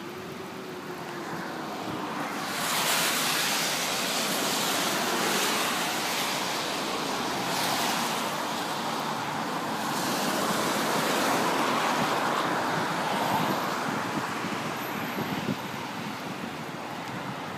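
Floodwater of the overflowing Zipori stream rushing across a low road crossing, a steady rushing noise that grows louder about two and a half seconds in.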